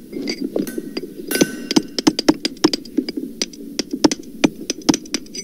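Recorded hammer blows, pitched down to sound deeper: rapid, irregular strikes, several a second, some with a short metallic ring.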